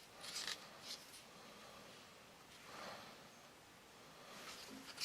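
Faint handling sounds of a kydex knife sheath: a few short soft scrapes and rubs in the first second and a longer, softer one about three seconds in.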